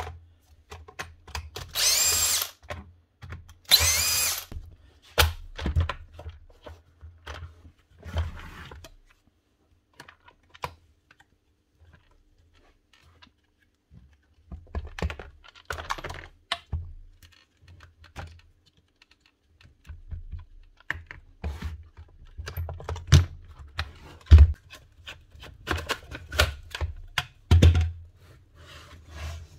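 A cordless drill-driver runs in two short bursts, about two and four seconds in, undoing the screws of a rotary hammer's rear housing. After that come clicks, rattles and knocks of plastic housing parts and loose screws being handled, with a louder knock twice near the end.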